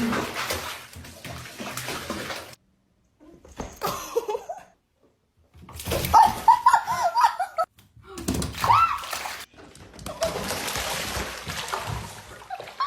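Water running and splashing, in separate stretches split by sudden cuts, with short pitched cries that rise and fall between them.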